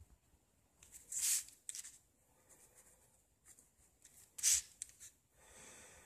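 A pen scratching on lined paper in quick sketching strokes. The two loudest strokes come about a second in and just past four seconds, and a softer rushing noise comes near the end.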